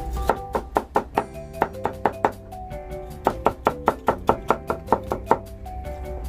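Kitchen knife mincing nagaimo (Chinese yam) on a cutting board: quick, sharp knocks about four or five a second, with a short pause midway. Background music plays underneath.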